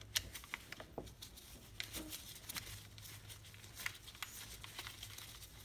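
Light, scattered clicks and taps of a Torx driver and small metal parts being handled while the carburetor bolts of an Echo SRM-225 string trimmer are taken out, over a low steady hum.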